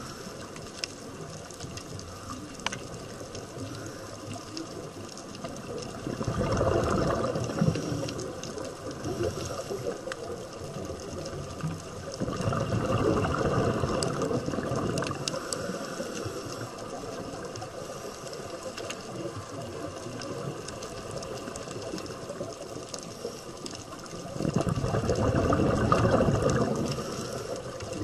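Underwater sound picked up by a diver's camera: a steady low hiss of water, swelling three times into a rushing surge of a few seconds each, like a scuba diver's exhaled bubbles.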